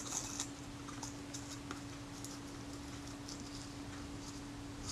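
Faint, scattered ticks and scratches of a scalpel blade working under a camera's leatherette covering to lift it off the metal body, over a low steady hum.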